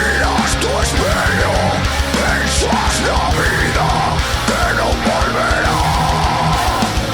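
Aggressive heavy rock song with a singer's voice sliding in pitch over a dense, driving band with a steady beat.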